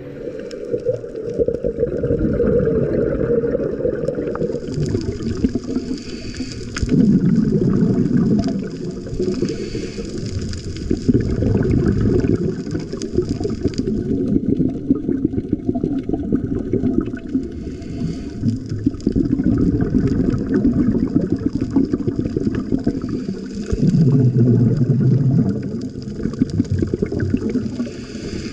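Underwater sound of a scuba diver breathing through a regulator: a low rushing and bubbling that swells into louder bursts of exhaled bubbles every few seconds, with a hiss over it.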